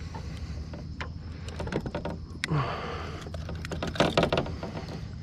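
Clicks, knocks and rattles of a fish lip-grip and landing net being handled against a plastic kayak, with a scraping stretch in the middle and the loudest burst of rattling about four seconds in.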